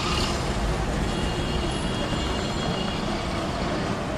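Steady street noise of road traffic running by, with no single event standing out.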